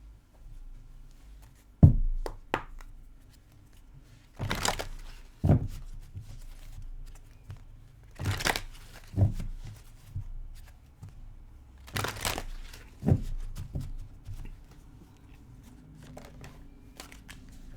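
Tarot cards being handled: three short rustling sweeps about four seconds apart, each followed by a sharp tap as a card is set down on the table.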